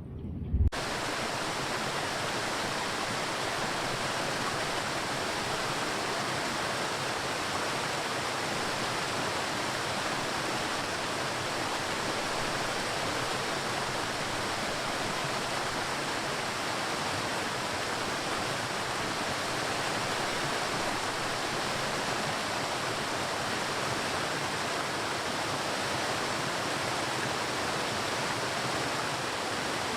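Waterfall: a steady, even rush of falling water that starts abruptly less than a second in, just after a short thump.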